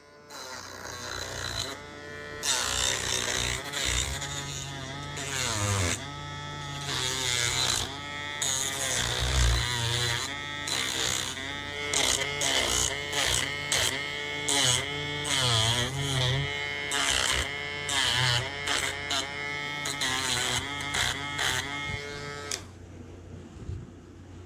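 Handheld rotary tool running at high speed, its whine dipping in pitch again and again as the bit is pressed into the wood to trim a part to fit. It shuts off about two seconds before the end.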